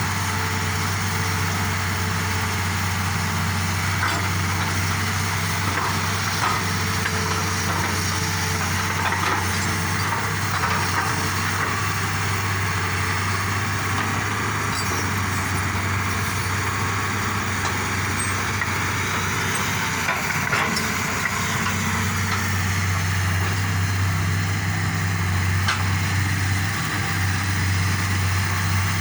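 Excavator's diesel engine running steadily, with a few faint scattered knocks over it.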